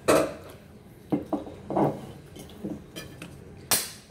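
Knocks and clinks of a plate and a drink can handled on a tabletop: a loud knock right at the start, a few lighter knocks in the middle, and a sharp click near the end.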